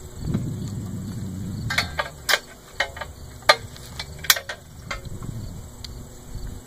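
Needle-nose pliers working a small steel spring onto the dump-release bar: a soft handling rustle, then about six sharp metal clicks and clinks spaced roughly half a second to a second apart as the spring's hook catches and slips.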